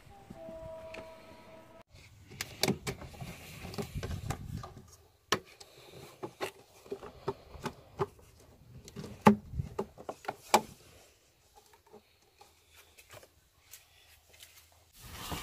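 The plastic air intake hose in a Peugeot 307 HDi engine bay being handled by hand: a series of sharp plastic clicks and knocks with rustling between them, the loudest about nine and ten and a half seconds in, then quieter handling.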